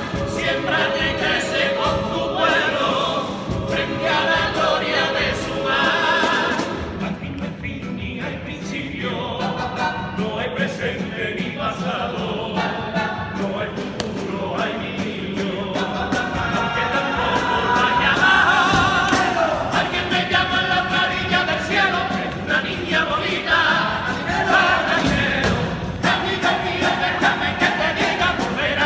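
Male carnival chorus singing a popurrí together in several voices, over a steady rhythmic accompaniment.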